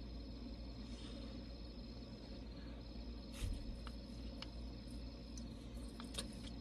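Faint car-cabin room tone: a steady low hum with a thin high whine that breaks off twice, and a few soft clicks and taps from the hands moving while signing.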